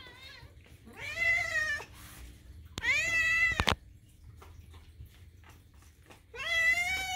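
Black-and-white kitten meowing loudly for food. There are three long meows, each rising and then falling in pitch, a second or more apart, with a faint shorter one at the start.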